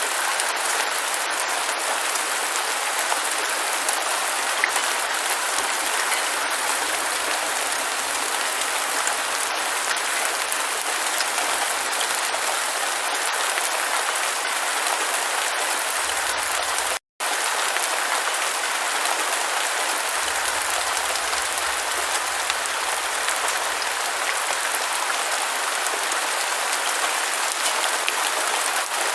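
Steady rain, a dense even hiss of drops falling. It cuts out for a split second about two-thirds of the way through, then carries on the same.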